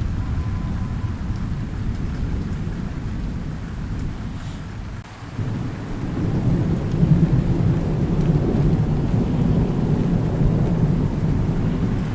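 Thunder rumbling over steady rain: a long low roll that dies away about five seconds in, then a new rumble swells up and rolls on to the end.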